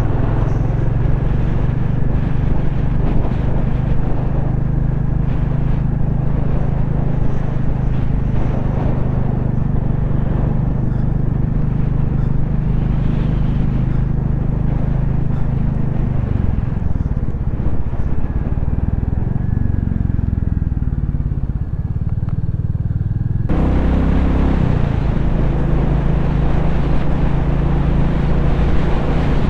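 Royal Enfield 350 single-cylinder motorcycle engine running on the move. Its steady note eases off and wavers a little past the halfway point. About three-quarters of the way in, a sudden change brings back a fuller engine note.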